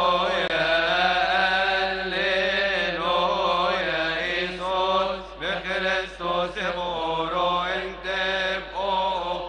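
A man's voice chanting a Coptic liturgical hymn at the microphone, in long drawn-out notes that bend up and down, with short breaks between phrases in the second half.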